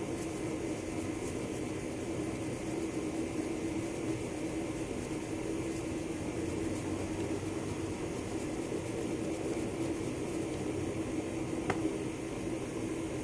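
Steady mechanical hum with a constant low tone, like a running motor or fan, with a single small clink near the end.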